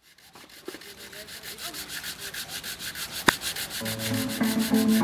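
Sandpaper rubbed by hand over a board in quick, even back-and-forth strokes, about six a second, growing louder. A single sharp click comes a little over three seconds in, and music with plucked strings comes in near the end.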